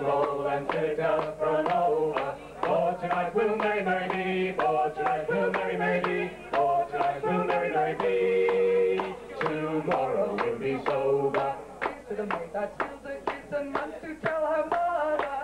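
Folk group performing live: a woman and a man singing together into microphones over a steady, evenly struck rhythmic accompaniment.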